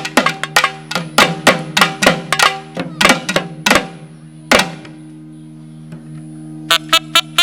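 Naiyandi melam folk band music: rapid, sharp drum strokes over a steady held drone. The drumming stops about four and a half seconds in, leaving the drone alone, then a quick flurry of four strokes comes near the end.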